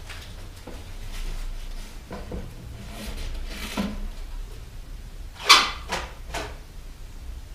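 Rummaging at a wooden chest of drawers: scattered knocks and scrapes of drawers and objects being handled, with one sharp knock about two-thirds of the way in, followed quickly by two lighter ones.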